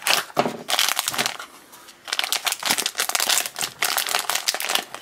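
Foil blind bag crinkling as hands pull and work it open, a quick run of crackles with a short lull about halfway through.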